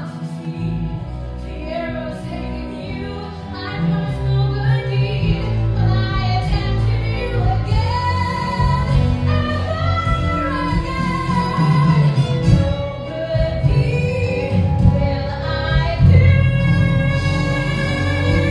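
Musical theatre song: a woman sings solo over orchestral accompaniment, with long held notes. The music grows louder about four seconds in.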